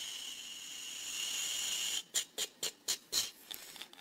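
A steady high hiss with a faint whistling edge, which breaks off about halfway through into a quick, slightly uneven run of short hissing bursts, about four a second.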